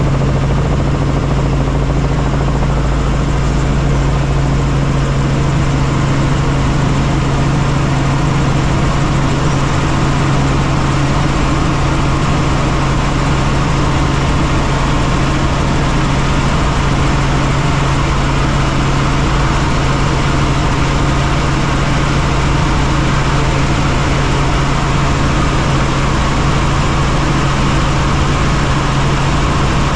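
Helicopter in flight: a loud, unbroken drone of rotors and turbine with a constant low hum running under it.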